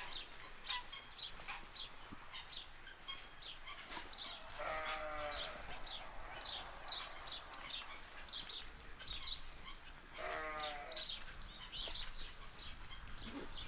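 Goat bleating twice, two drawn-out wavering calls about six seconds apart, over a steady run of short high chirps.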